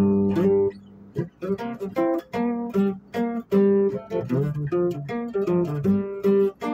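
Music played on a plucked guitar, most likely acoustic: a quick, steady run of single picked notes, with a short drop in level about a second in.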